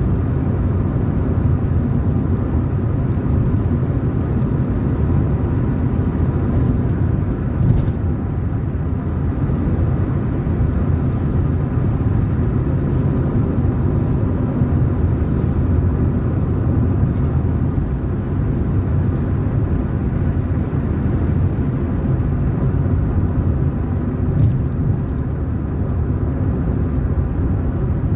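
A car driving along a road: steady low rumble of tyres and engine, with two brief knocks, one about a quarter of the way through and one near the end.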